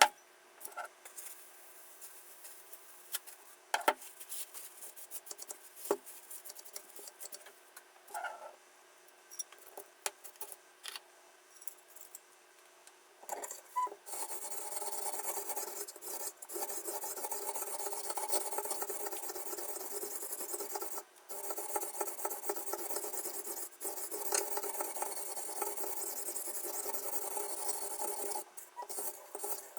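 Sharpening stone of a toohr 1.2 guided knife sharpener scraping along a kitchen knife's edge. The first half holds only scattered light clicks and knocks as the stone and knife are handled; from about halfway the stone is worked steadily over the blade, with a brief pause about two-thirds through, and a few clicks near the end.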